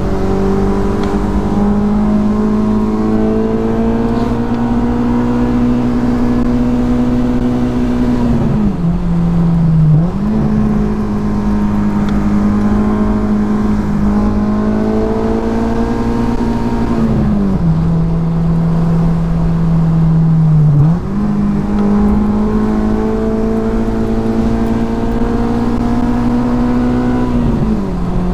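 Honda S2000's 2.2-litre inline-four engine running at high, steady revs under a spirited drive; three times its pitch sags as the revs fall, then jumps back up as it pulls hard again.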